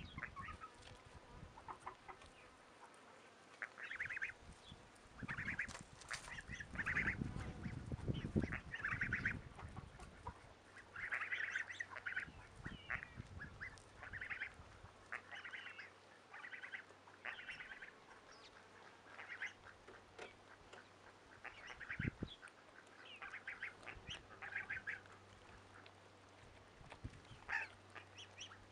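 Domestic ducks quacking in repeated short bursts of calls, with a spell of low rumbling noise about six to nine seconds in.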